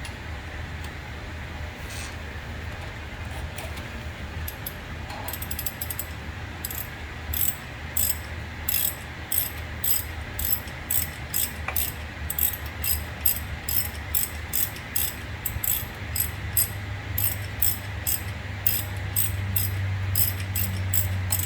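Hand ratchet clicking steadily as it loosens and backs out the 14 mm lower brake caliper bolt, at about three clicks a second from about six seconds in, over a steady low hum.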